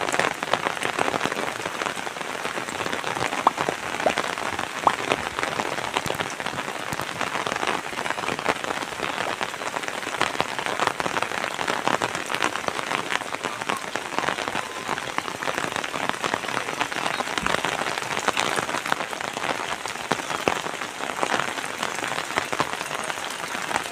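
Steady rain: a dense, even patter of drops with scattered louder single drips.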